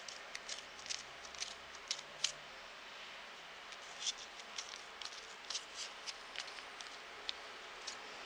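Scissors snipping through yarn wound on a plastic pompom maker, cutting the loops open round its groove: a run of short, irregular snips with a brief pause about midway.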